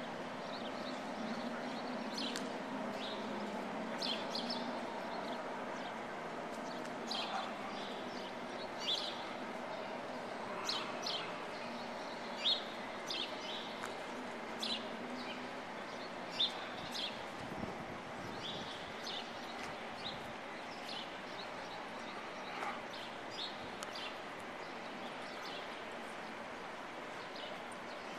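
Small birds chirping, many short high calls coming irregularly, over a steady low background hum.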